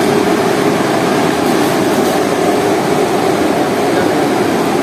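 Air-conditioner units running steadily to chill a walk-in cold storage room: a constant whirring fan noise with a steady hum under it.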